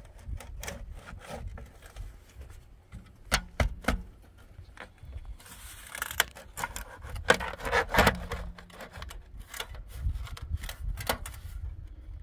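Thin sheet-metal stovepipe sections clinking, knocking and scraping against each other as they are twisted and pushed together by hand. There is a longer scrape about halfway through and a burst of clanks a little after, over a steady low rumble.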